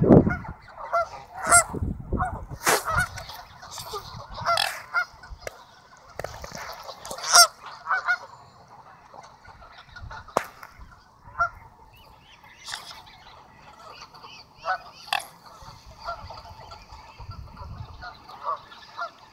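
A flock of geese honking on the water: many short, overlapping honks for the first eight seconds or so, then scattered single calls.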